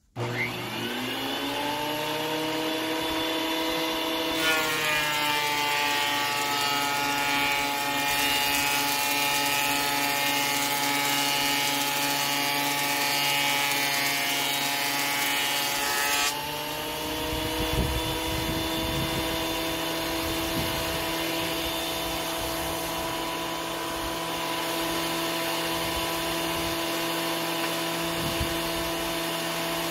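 Benchtop thickness planer switched on and spinning up. From about four to sixteen seconds in, a cedar board feeds through: the motor's pitch drops slightly under load and the knives add a loud rough cutting noise. Then the planer runs on steadily with no board in it.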